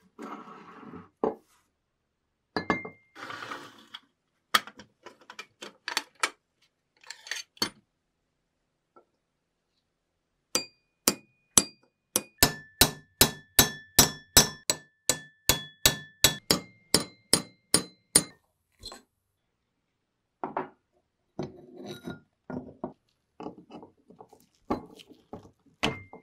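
Hammer striking a steel punch set in the rusty iron axe head: a fast, even run of some twenty ringing metal blows, about three a second, driving out a pin. Before and after the blows, the heavy rusty axe head clinks and scrapes as it is handled.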